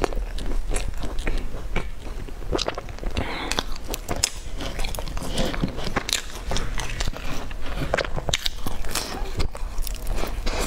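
Close-miked mouth sounds of eating: chewing, wet lip smacks and bites into a soft pastry dipped in chocolate sauce, as a run of irregular small clicks.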